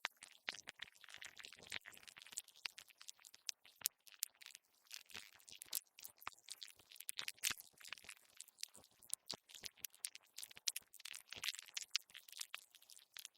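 Insects making a dense, irregular crackle of high clicks and scratchy ticks, with no steady chirp or regular rhythm.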